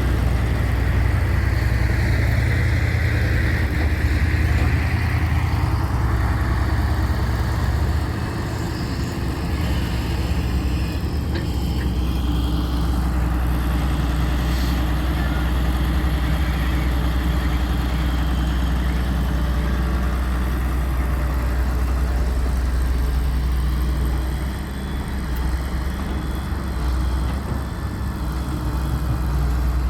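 Heavy diesel engine of a construction machine running steadily with a deep, constant hum; the level dips slightly about a quarter of the way in and again near the end.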